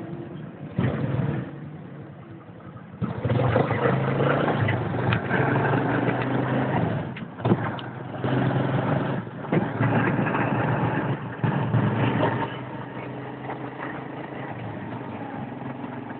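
Motorcycle engine of a motorized tricycle running as it carries its passenger along the street, getting louder for several seconds in the middle as it pulls away and picks up speed, then settling to quieter steady running near the end. A few sharp knocks come in the loud stretch.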